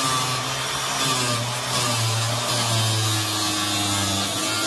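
Chicago Electric angle grinder with a cut-off wheel cutting through rusted steel of a truck cab mount: a steady, harsh grinding hiss over the motor's hum, its pitch wavering slightly as the wheel loads up in the cut.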